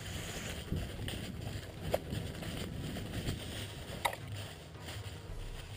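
Hurried movement over dry leaf litter: rustling and crunching footsteps with gear and handling noise on a camera mounted on the player or his gun. A few sharp clicks stand out, about two and four seconds in.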